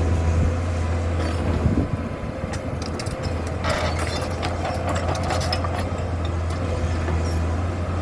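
Komatsu PC200-7 excavator's six-cylinder diesel engine running steadily under a constant whine. A stretch of crackling noise comes a little before the middle.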